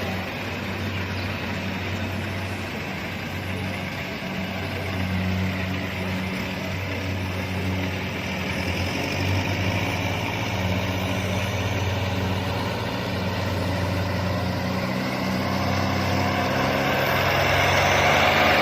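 Kubota DC-70 combine harvester running, a steady engine hum with mechanical noise, growing a little louder near the end.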